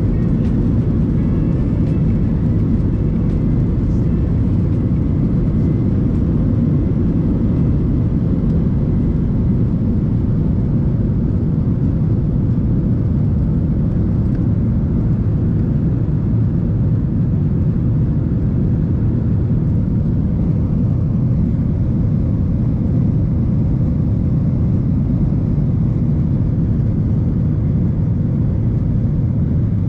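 Steady low rumble of a jet airliner's cabin noise, engines and airflow, unchanging throughout.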